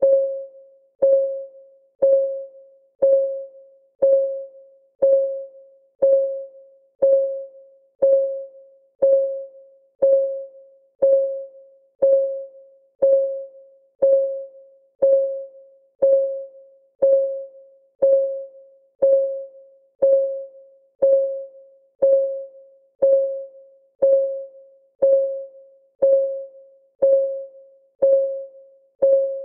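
Clock ticking sound of a countdown timer: one tick a second, each a short pitched click that dies away quickly, with an even beat.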